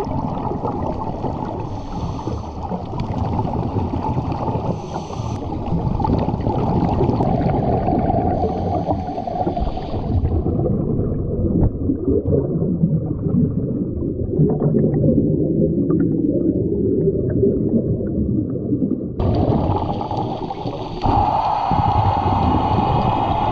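Muffled underwater rushing and gurgling of water and bubbles during a dive. About ten seconds in the sound turns duller, and about nineteen seconds in a brighter hiss cuts back in abruptly.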